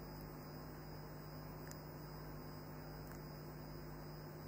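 Faint steady electrical hum, a low mains-type buzz over light hiss on a video-call audio line, with faint ticks about every second and a half.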